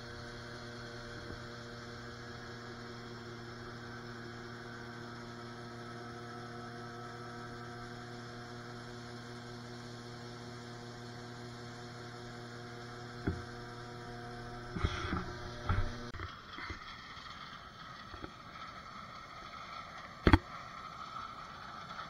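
Steady, even drone of farm machinery running while shelled corn is unloaded from a John Deere combine's auger into a grain cart, with a few knocks near the middle. The drone then gives way to a rougher, noisier machine sound, with one sharp loud click near the end.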